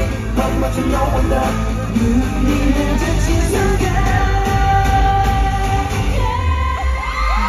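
Live K-pop concert music over a loud PA: male vocals over a pop track with heavy bass, heard from within the crowd. Near the end, rising sweeps lead into a held high tone.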